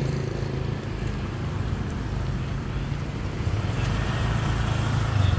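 Street traffic: motor vehicles running, a steady low rumble, with a passing vehicle growing louder near the end.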